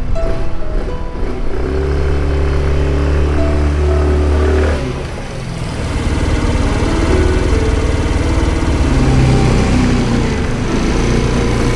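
Background music with sustained low chords that change every few seconds.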